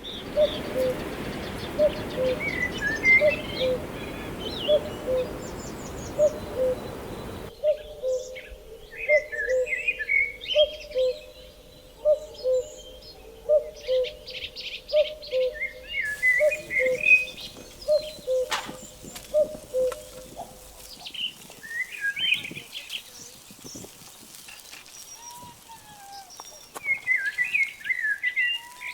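Woodland birdsong: one bird repeats a low two-note call, higher note then lower, over and over for most of the stretch, while songbirds chirp higher up. An even hiss lies under the first seven seconds or so and stops abruptly.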